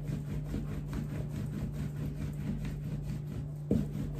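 Long thin wooden rolling pin (oklava) rolling a thin sheet of baklava dough on a wooden board: a fast, even run of rubbing strokes as the hands work the dough along the pin, with a single knock a little before the end.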